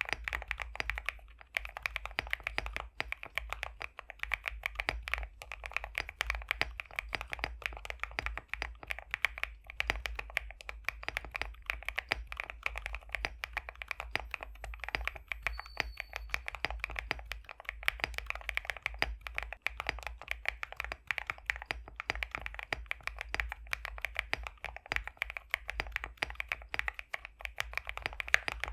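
Continuous fast typing on an Epomaker x Createkeebs High65 v2 custom mechanical keyboard with BSUN X linear factory-lubed switches. The keystrokes fall in a dense, steady stream of clicks.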